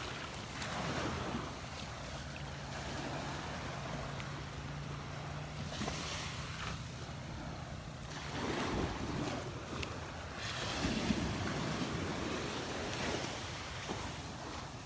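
Small waves washing onto the sand at the water's edge, a wash of surf that swells and fades every few seconds, with wind on the microphone. A faint low steady hum runs under it through the first half.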